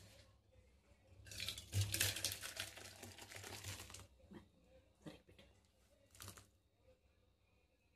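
Thick sambar pouring out of a pan into a steel bowl, a wet splattering for about three seconds, followed by a couple of light clinks of the pan and bowl.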